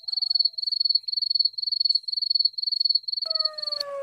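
Cricket chirping in a high, rapid trill of about four chirps a second, cutting in suddenly and stopping just before the end. About three seconds in, a long falling wail begins under it.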